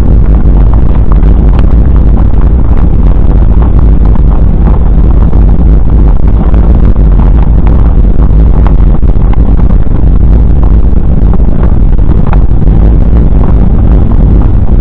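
Airliner cabin noise: a loud, steady, deep rumble of engines and airframe, recorded so loud that it stays at the top of the level throughout.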